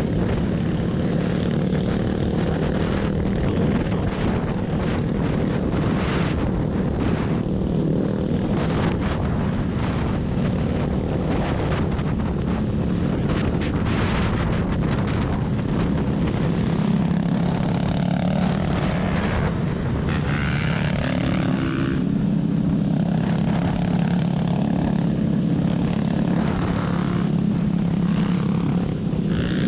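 Off-road vehicle engine running steadily under way, with rough noise and frequent short knocks and rattles from driving over rough ground.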